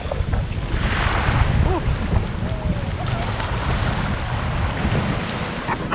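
Ocean surf washing and foaming in shallow water, with wind buffeting the microphone as a steady low rumble.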